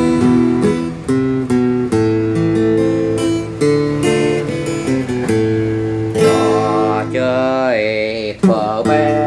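Budget student acoustic guitar with a spruce top and laminated back, played with a pick: an improvised picked melody over held bass notes. In the last few seconds the notes slide and waver in pitch.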